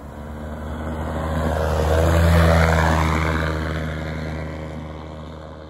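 Edra Super Petrel 100's Rotax 912S engine and three-bladed pusher propeller flying past: a steady drone that grows louder, peaks about halfway through, then drops in pitch and fades away.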